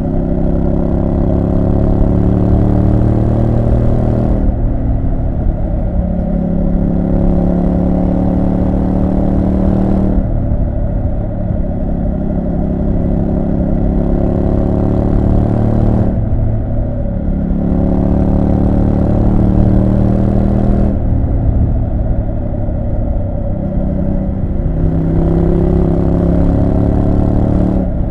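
Triumph Street Scrambler 900's parallel-twin engine running under way, pulling steadily. Its note drops briefly and picks up again about every five or six seconds, as the throttle is eased and reopened.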